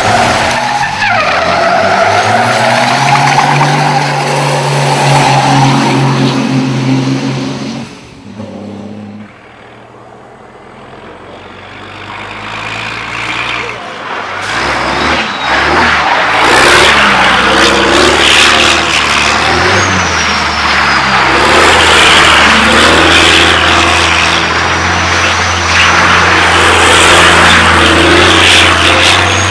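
Race truck's diesel engine running hard at high revs, dropping away briefly about eight seconds in, then tyres squealing and skidding loudly over the engine as the truck spins in a smoking burnout.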